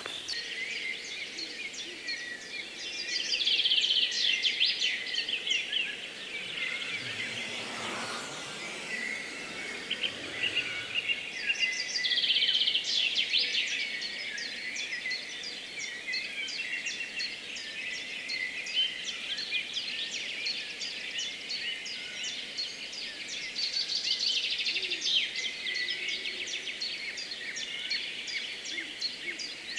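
Dawn chorus: many songbirds singing at once, a dense layer of high chirps and trills. Single songs stand out louder about three seconds in, around twelve seconds in, and around twenty-four seconds in.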